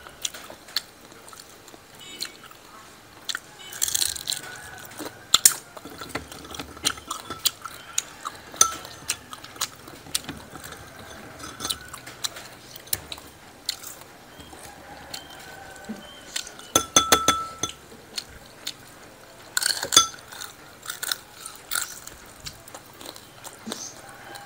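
Close-up crunching and chewing of crisp fried whole sparrows: irregular sharp crunches throughout, loudest in a few short clusters.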